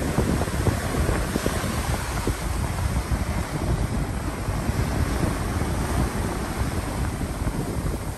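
Wind buffeting the microphone in uneven gusts over the steady rush of sea water churned along a moving ship's hull.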